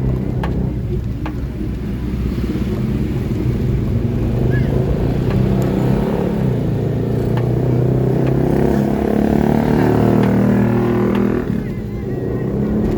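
A motor vehicle with a steady, low pitched drone that grows louder and wavers in pitch through the middle, then dips briefly near the end.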